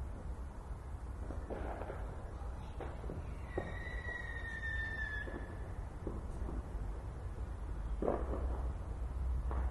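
Fireworks going off in the distance, with scattered bangs and crackles every second or two over a steady low rumble. Around the middle a thin whistle holds for nearly two seconds, falling slightly in pitch.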